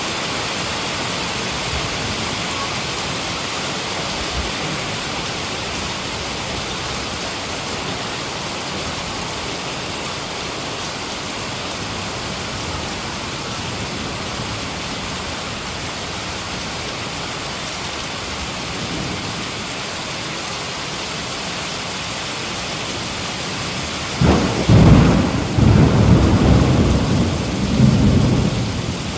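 Heavy rain falling steadily. About 24 seconds in, a loud roll of thunder rumbles for several seconds, then fades back into the rain.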